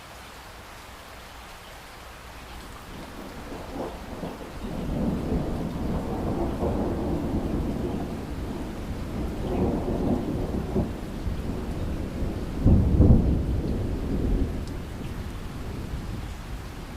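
Steady rain with a long roll of thunder that builds a couple of seconds in and rumbles in surges. It peaks in a sharp, loud clap about three-quarters of the way through, then rolls away.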